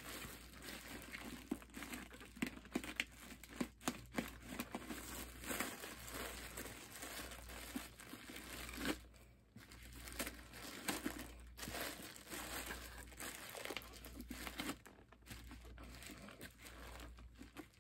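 Thin plastic bag crinkling as it is pulled and worked out of the opening of an epoxy-coated gourd, in short irregular crackles.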